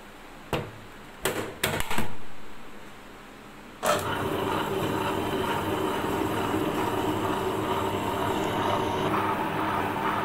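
The lid of a table-top wet grinder is knocked and clicked into place several times, the loudest knock about two seconds in. About four seconds in, the grinder starts and runs steadily, its stone turning in the drum as it grinds soaked urad dal into smooth idli batter.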